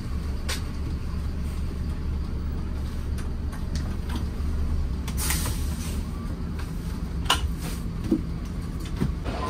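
Bus engine running with a steady low rumble. A few scattered clicks and knocks sound over it, and a short hiss comes about five seconds in.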